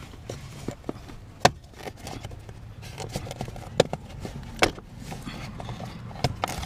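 Plastic clicks and knocks as the plastic cover around the steering shaft at the floor is worked loose by hand, with a few sharp clicks about a second and a half in, near four seconds and again near the end.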